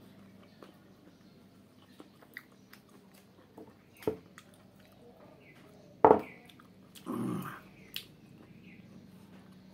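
Mostly quiet, with a few light knocks and two short voice-like calls about six and seven seconds in, the first the loudest.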